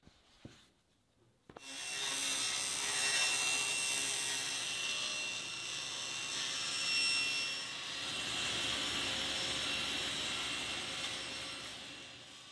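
A woodworking power tool working wood: a steady rasping noise that starts about a second and a half in and fades out near the end.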